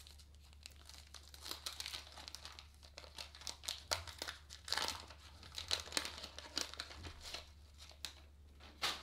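Wax paper wrapper of a vintage Topps trading-card pack being torn and peeled off the cards, crinkling and crackling in irregular spurts, loudest in the middle and once more near the end.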